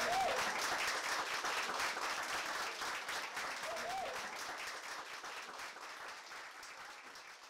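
A small roomful of people applauding, with a voice briefly calling out twice. The applause fades out gradually toward the end.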